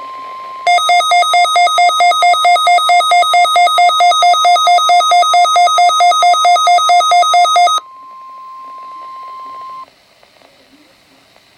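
NOAA Weather Radio 1050 Hz warning alarm tone, a steady single pitch lasting about ten seconds. For about seven seconds a much louder, buzzy electronic beeping at about five beeps a second sounds over it: the weather radio receiver's own alert, set off by the tone. The beeping stops, and the plain tone carries on for about two seconds more before cutting off.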